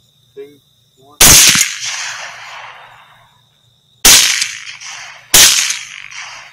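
Three rifle shots fired at coyotes, each with an echo rolling away: one about a second in, then two more close together, about a second apart, near the end.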